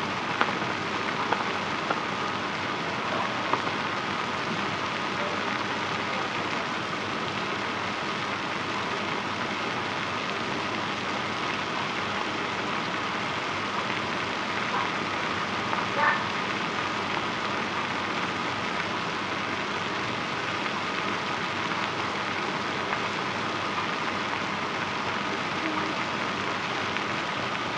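Pot of water with farfalle pasta at a rolling boil: steady bubbling and hissing with scattered small pops, and one louder pop about halfway through.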